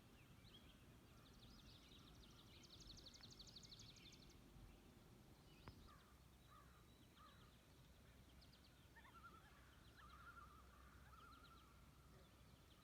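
Faint songbirds singing: a rapid trill of high repeated notes a second or two in, then scattered lower calls later on.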